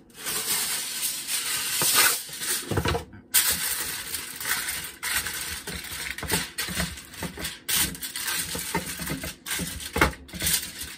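Aluminium foil (Reynolds Wrap) crinkling and rustling as it is handled, pulled off the roll and folded. The dense crackle of crinkles stops briefly about three seconds in.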